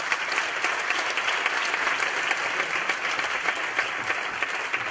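Audience applauding steadily in a lecture hall: a dense patter of many hands clapping at once, the ovation at the end of a talk.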